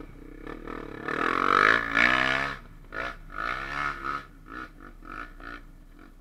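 Dirt bike engine revving hard for about a second and a half, its pitch rising and falling, then a run of short throttle blips.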